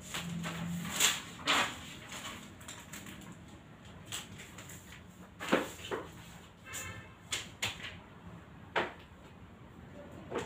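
Large paper chart rustling and crinkling in short, sharp bursts as it is handled and pressed flat against a wall, with a brief squeak about seven seconds in.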